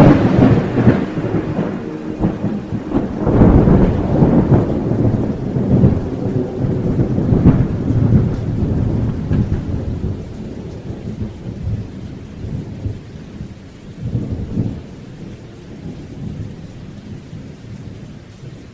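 Rain with rolling thunder, the rumbles loudest in the first half and fading away toward the end.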